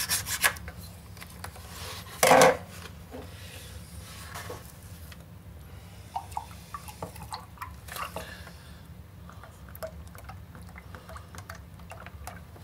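Kitchen handling sounds: a soft plastic milk pack rustling and milk being poured into a ceramic mug, with scattered light clicks and clinks. A short louder clatter comes about two seconds in.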